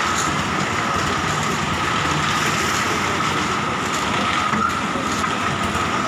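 Construction machinery running steadily: a loud, even mechanical noise with a constant high whine.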